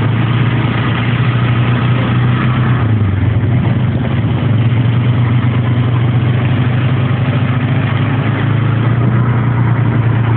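ATV engine running steadily, with a slight dip in pitch about three seconds in.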